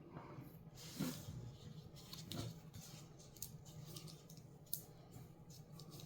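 Faint handling noises: a few light clicks and rustles as rocks and their packing are handled.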